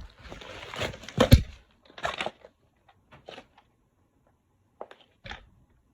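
Cardboard box and packaging being handled as a boxed fire alarm pull station is pulled out: rustling and scraping with a couple of sharp knocks in the first two seconds, then a few faint taps.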